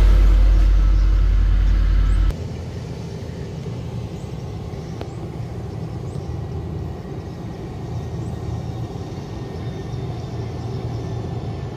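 Single-drum road roller running close by with a loud, low, pulsing drone, which cuts off abruptly about two seconds in. A quieter, steady low rumble of heavy road machinery working farther off follows.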